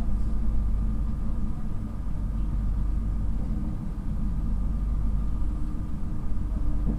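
Steady low rumble and running noise of an East Coast InterCity 225 express travelling at speed, heard from inside a passenger coach.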